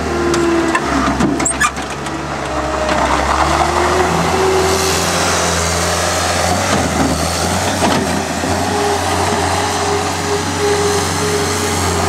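Caterpillar skid steer loader's diesel engine running steadily as the machine drives past close by and on away, with a few sharp knocks about a second in.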